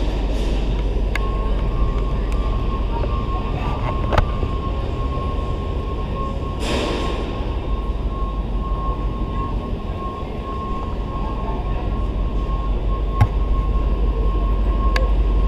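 Steady low mechanical rumble and hum with a thin steady high-pitched whine; two short clicks and a brief hiss about seven seconds in.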